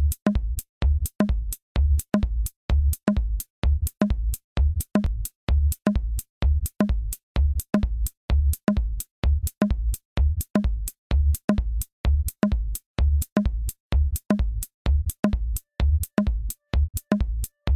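Background music with a steady, even drum beat about twice a second.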